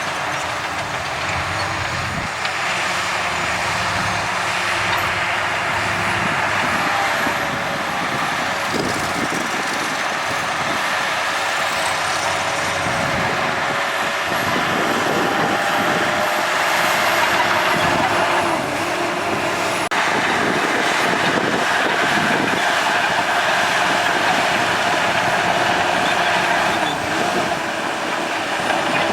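Crawler bulldozer working: its diesel engine runs under load, with a steady metallic squeal and clatter from the machinery.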